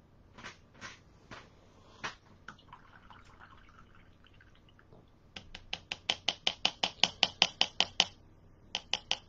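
Sharp clicking of small hard objects: a few scattered clicks, then about three seconds of rapid, even clicks at roughly five or six a second, and a few more near the end.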